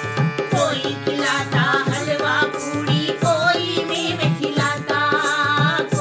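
Women singing a Hindi devotional devi bhajan to a harmonium, over a steady hand-drum beat. The voices come in about half a second in, over held harmonium chords.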